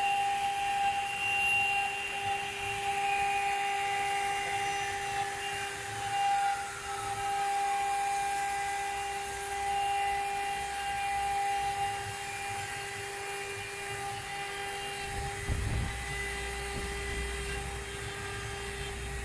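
CNC stone engraving machine running, its spindle giving a steady high whine made of several held tones. One tone slides down in pitch a few seconds in, and a low rumble joins about fifteen seconds in.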